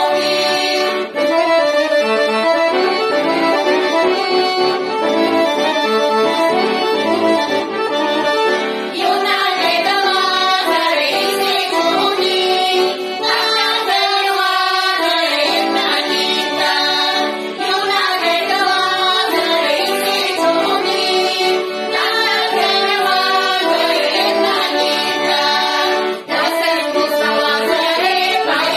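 Bulgarian women's folk group singing a traditional folk song together in several voices, with long held notes and short breaks between phrases.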